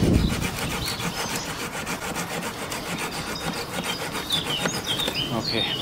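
Hand pruning saw cutting through a fruit-tree branch during tree pruning, in quick, even rasping strokes of the blade through the wood. A dull thump comes right at the start.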